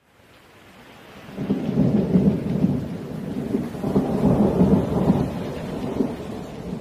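Thunderstorm sound effect: thunder rolling twice over rain, fading up from silence.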